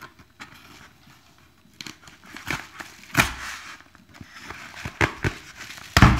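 Kraft-paper padded mailer crackling and rustling as it is handled and slit open with a knife, in scattered short bursts, with a heavier knock near the end.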